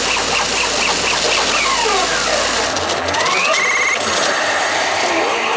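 P Hokuto no Ken 9 Toshin pachinko machine sound effects: fast repeating electronic beeps and many rising and falling pitch sweeps. A steady low hum cuts out about halfway through, and a fast warbling tone follows shortly after.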